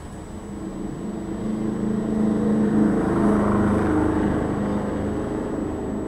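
An engine's steady hum that grows louder to a peak about three seconds in and then fades, as a vehicle going past does.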